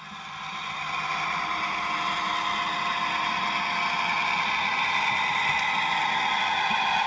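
Model railway locomotive running with a sound decoder, its diesel engine sound playing through the loco's small speaker along with motor and wheel running noise. It grows louder over the first second, then holds steady.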